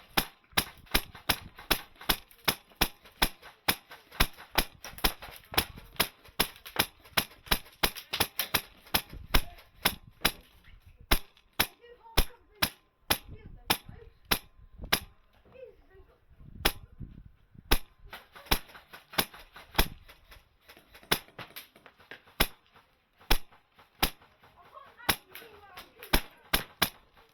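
Airsoft rifle firing single shots as sharp cracks, several a second for about ten seconds, then slower and more spaced out.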